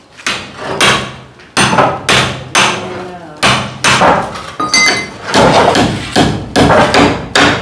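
Hammer blows on wooden roof timber, a steady run of sharp strikes about two a second.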